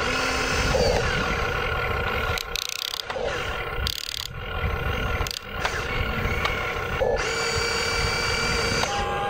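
Huina RC excavator's electric motors and gearboxes whining and grinding as it works its arm and bucket, stopping briefly a few times near the middle.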